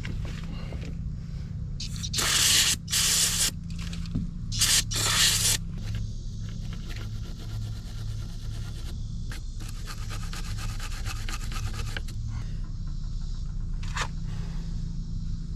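Scraping and rubbing from hands working parts into the skid steer's battery box, with two loud scrapes in the first few seconds. A run of fast, even ticking follows in the middle, over a steady low hum.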